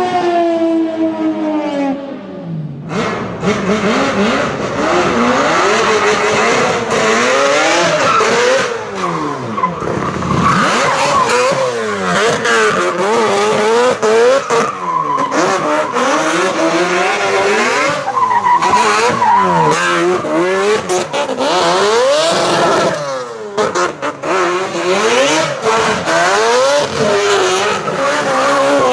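Rotary engines of drift cars, among them a Mazda RX-7, revving hard up and down in quick rising and falling sweeps, over tyre squeal and skidding.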